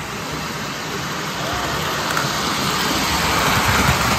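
Lionel O scale 4-6-4 Hudson #773 model steam locomotive running along three-rail track, its wheels and electric motor making a steady rumbling whir that grows louder as it comes close, loudest about four seconds in.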